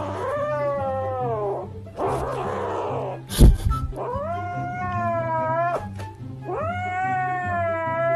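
A kitten giving three long, drawn-out meows, the first sliding down in pitch, over background music. A sharp thump comes about three and a half seconds in.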